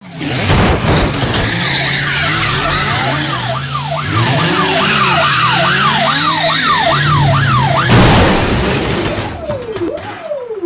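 Car-chase sound effects: a car engine running and tyres screeching, with a police siren wailing quickly up and down from about three seconds in. A loud crash comes about eight seconds in, and the siren then carries on at a slower wail.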